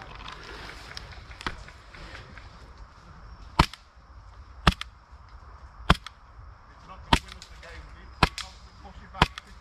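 Airsoft gun firing single shots: six sharp cracks about a second apart from midway on, with a few fainter shots before them.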